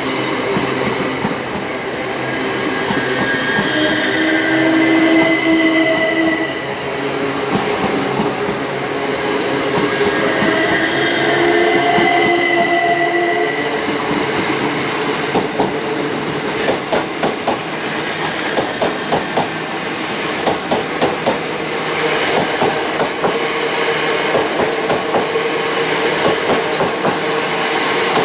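Greater Anglia Class 379 Electrostar electric multiple unit running past close by. In the first half it gives a whine at a few steady pitches. In the second half there is a rhythmic clickety-clack of wheels over rail joints.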